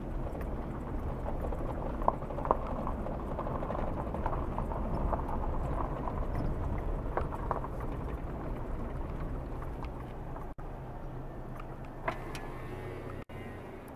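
A car driving slowly over a gravel dirt road, heard from inside the cabin: steady engine and tyre rumble with small stones ticking under the tyres. A few sharp knocks come about two seconds in and again near the end.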